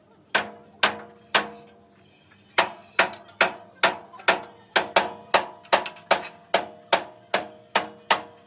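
A hammer striking steel over and over, about two to three blows a second. Each blow rings like metal, and there is a brief pause after the first three.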